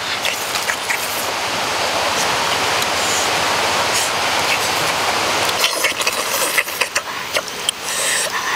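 Steady rushing noise of falling water from a waterfall, with a scatter of sharp clicks over it in the second half.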